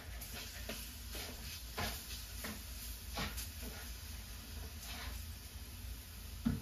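A quiet room with a steady low hum and a few faint, scattered clicks, like cutlery touching plates at a dinner table.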